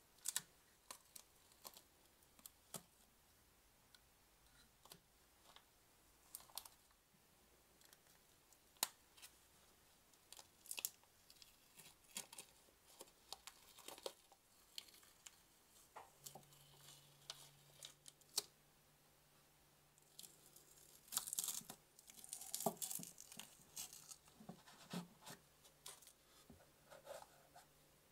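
Masking tape being peeled and torn off a freshly lacquered oil cooler: short crackling pulls and scattered small clicks, with a longer stretch of crackly peeling about three-quarters of the way through.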